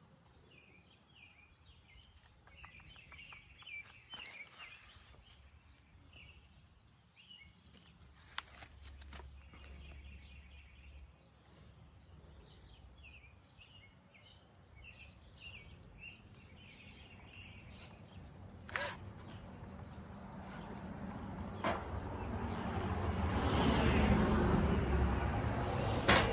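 Birds chirping faintly in the background, with a few sharp clicks and taps of small parts being handled. Over the last several seconds a broad rushing noise swells up and becomes the loudest sound.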